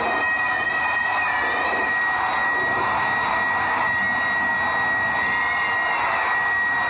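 Handheld hair dryer running steadily, blowing air with a constant high whine over its rush.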